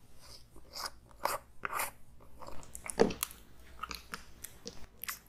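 Close-up handling of a green plastic jar of aloe vera gel: the lid is unscrewed and the clear plastic inner cover lifted, giving scattered crinkly clicks and taps, with one louder knock about three seconds in.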